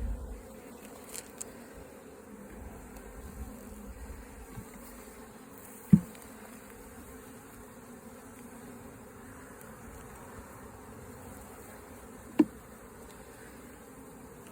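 Honey bees buzzing steadily around an opened hive during a brood inspection, with two sharp knocks about six seconds apart.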